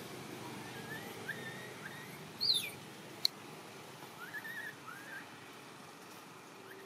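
Baby long-tailed macaque crying in short, high whimpering calls, a few in a row about a second in and again around four to five seconds, with one louder squeal falling steeply in pitch about two and a half seconds in. A single sharp click comes just after the squeal.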